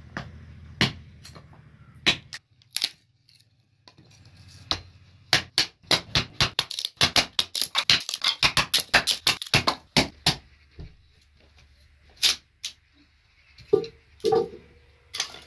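Sharp knocks and clicks, scattered at first, then a quick run of about five or six a second in the middle before they thin out again.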